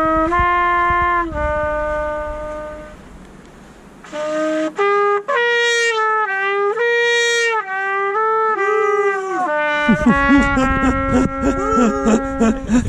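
Trumpet playing a slow melody of held notes, with a short pause about three seconds in. Near the end, knocks and a low rumble come in under the trumpet.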